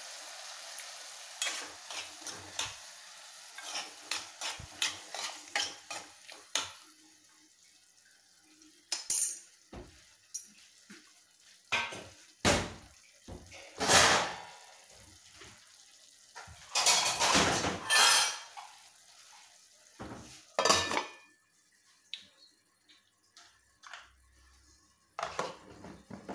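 A utensil stirring and scraping in a metal cooking pot of food on the stove, with sharp clanks against the pot, some much louder than others. A steady hiss of the food cooking fades at first, and near the end a metal lid is set on the pot.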